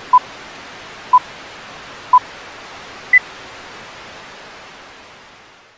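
Old-film countdown leader sound effect: three short beeps a second apart over a steady hiss, then a fourth, higher-pitched beep; the hiss fades out near the end.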